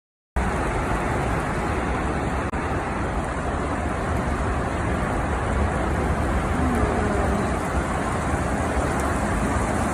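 Steady hiss of heavy rain with road or wind noise and a deep low rumble, cutting in abruptly from silence just after the start.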